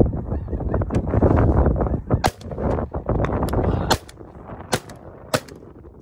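Several shotgun shots fired at passing snow geese, coming in quick succession over a loud, dense rush of noise in the first few seconds, then two more single shots about half a second apart near the end.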